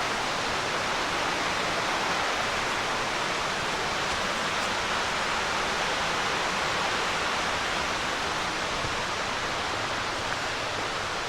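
Steady rushing of the Lehigh River's flowing water, an even hiss with no breaks.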